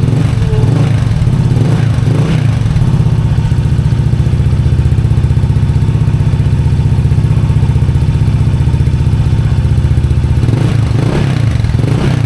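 Honda ADV 160 scooter's single-cylinder four-stroke engine running steadily through a Replica Pro stainless 'silent killer' aftermarket exhaust, a deep, even exhaust note.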